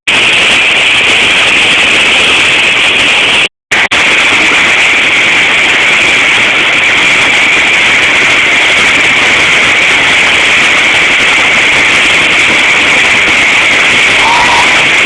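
Loud, steady rush of turbulent water, an even hiss with no rhythm, broken by a brief dropout a few seconds in.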